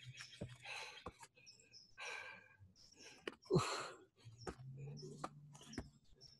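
A man's hard breathing from exertion during bear crawls, with a few sharp exhalations, the loudest a little past halfway. Birds chirp faintly in the background, with light taps.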